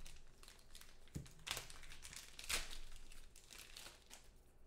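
Foil trading-card pack wrapper crinkling in the hands as it is opened and handled: faint, irregular crackles.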